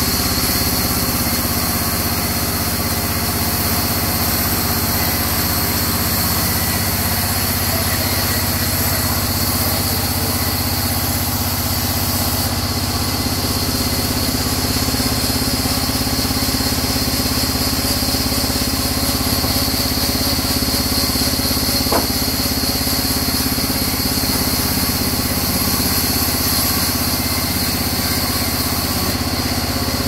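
A vertical band sawmill running steadily, its blade sawing lengthwise through a long, crooked mahogany log.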